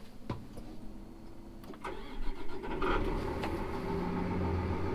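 Versatile 365 tractor's diesel engine starting about two seconds in, then settling into a steady idle.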